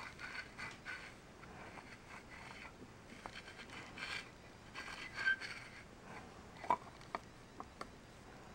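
Faint handling noises as a crumpled metal tube of E6000 glue is squeezed and dabbed around a fibreglass wick on an aluminium bottle stove: scattered soft crinkles and scrapes, with a few sharper clicks near the end.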